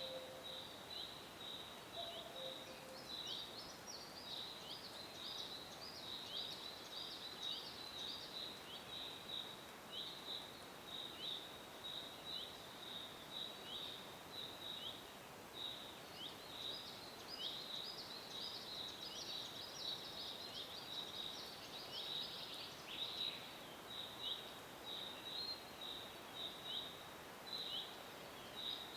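Woodland birdsong: small birds repeating short, high, downward chirps several times a second throughout, over a faint steady hiss. A cuckoo gives its low two-note call twice in the first few seconds.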